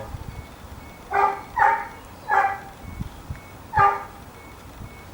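A dog barking: four short, sharp barks spaced irregularly.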